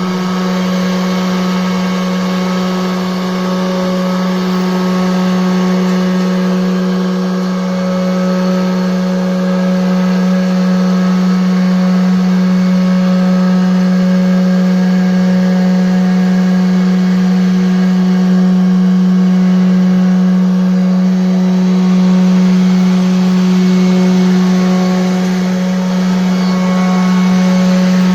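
CNC router spindle running steadily while its bit cuts wood, a constant hum with a machining hiss over it.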